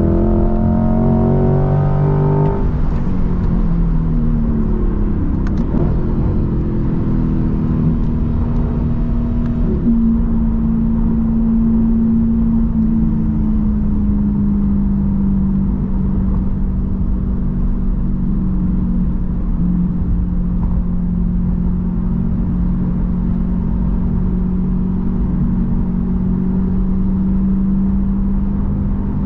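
Corvette C8's V8 engine heard from the cabin on the move: revs climb for the first couple of seconds, the pitch drops at a gear change, and from about ten seconds in it settles to a steady drone at an even speed, with road and tyre noise underneath.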